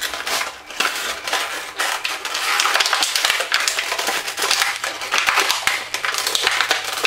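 Clear plastic packaging crinkling and crackling continuously as it is worked and pulled off a plastic toy purse.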